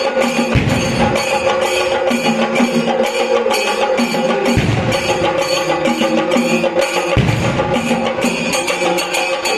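Music with a steady percussion beat of about four strokes a second over sustained melody, with three deep drum booms spread through it.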